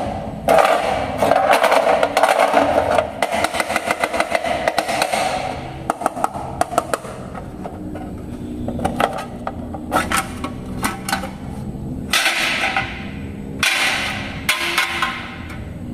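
Blue metal tin pencil case being handled and opened: a quick run of rattling clicks in the first half, scattered knocks, then two scraping sounds near the end.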